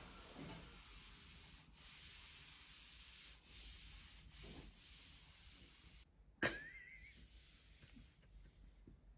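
Very faint rubbing and rustling, close to silence. About six and a half seconds in there is a sharp click, followed by a short rising squeak.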